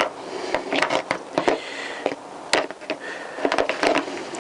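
Irregular sharp clicks and light knocks, a dozen or so, from parts being handled, over a steady hiss.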